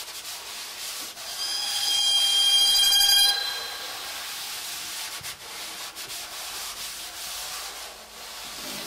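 Objects rubbed and scraped against a prepared stringed instrument and metal, a steady scratchy hiss. About a second and a half in, a louder high metallic ringing with several overtones sounds for about two seconds and stops suddenly.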